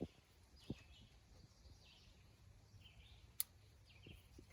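Near silence: faint bird chirps and a few soft clicks, with one sharper click about three and a half seconds in.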